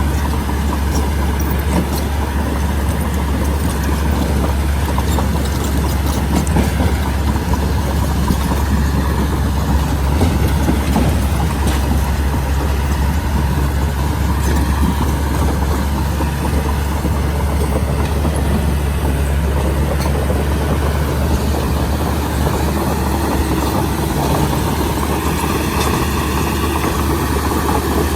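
Diesel engine of a Komatsu D31P crawler bulldozer running steadily, with a deep low-pitched drone.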